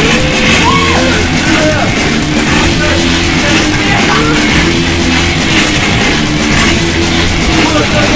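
Rock-style dance music with a steady beat, played loud on a hand-cranked electric barrel organ.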